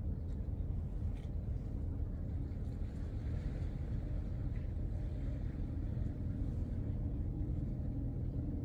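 Low, steady rumble of a large container ship under way close by, its engine and hull pushing through the water.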